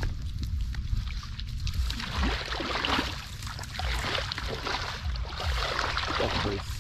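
Canal water sloshing and splashing irregularly, with many short splashes, as someone wades and works by hand in the water. A low rumble runs underneath.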